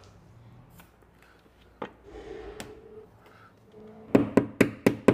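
A quick run of about five sharp taps near the end, a tap-down tool being struck against a car door panel to knock down a high spot raised by a glue pull. A single small click comes about two seconds earlier.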